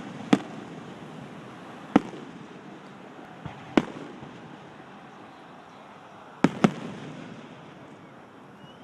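Fireworks shells bursting overhead as the finale tails off: single sharp bangs a couple of seconds apart, then two close together about six and a half seconds in, over a fading background hiss.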